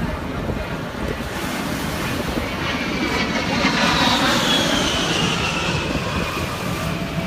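A jet aircraft passing overhead. Its loud rushing noise swells midway and its high whine falls in pitch as it goes by, with wind buffeting the microphone.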